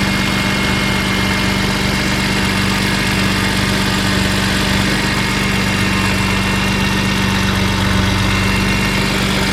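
BMW E46 M3's S54 straight-six idling steadily through catless headers, a Yonaka rasp-pipe section 1, an unresonated X-pipe and a Megan Supremo rear section. The freshly installed exhaust has no leaks and the engine is running well.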